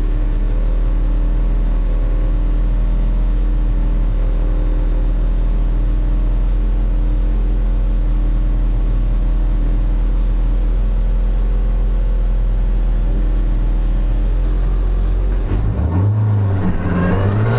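A race car's engine, heard from inside the roll-caged cabin, idling steadily at the start line; near the end the revs rise as the car gets ready to pull away.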